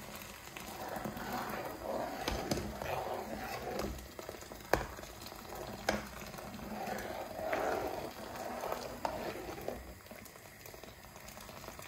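Water pouring from a jug into a pot of hot tomato paste and crushed wheat, splashing steadily, with a few sharp clicks along the way; near the end the pouring stops and a ladle stirs the mixture.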